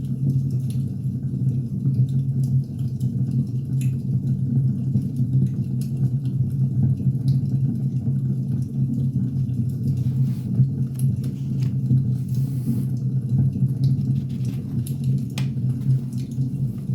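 Wood fire burning: irregular sharp crackles and pops over a steady low rumble.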